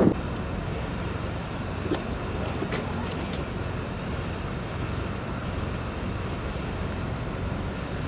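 Steady low engine rumble of a semi truck coming through deep snow, with a few faint clicks.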